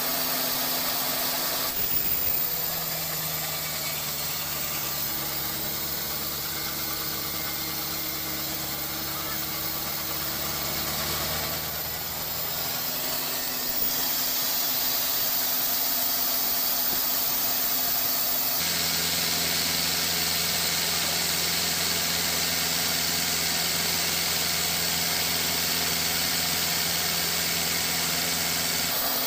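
Steady hum of sawmill engines and machinery that changes abruptly three times. The last stretch, about ten seconds, is a rotary debarker turning against a log as it strips the bark.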